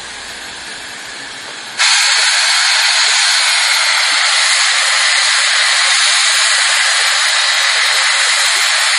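Steam locomotive's safety valves blowing off: a loud, steady hiss of escaping steam that starts suddenly about two seconds in, over a fainter hiss before it.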